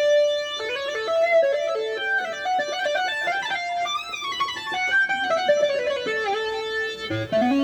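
Korg PS60 keyboard playing a plucked, guitar-like voice, one note at a time. A held note gives way to quick runs that climb and fall back, ending on lower held notes.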